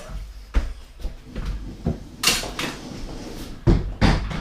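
A series of separate knocks and bumps of hard objects being handled, with the heaviest, deepest thumps near the end.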